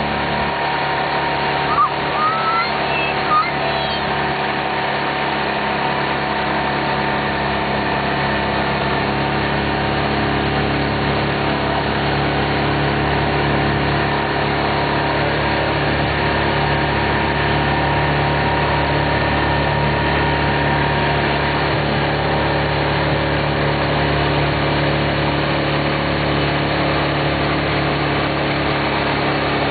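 Boat engine running steadily under way, towing a surfer. A few brief, high rising squeaks sound about two to three seconds in.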